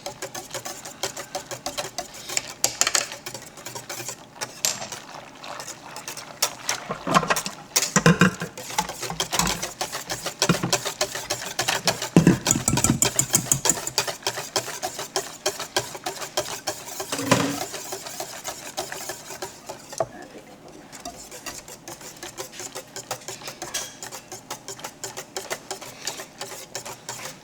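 A whisk beating rapidly against a mixing bowl, blending ground nutmeg into an eggnog base of milk, cream and liquor, in a fast, continuous clatter of strokes.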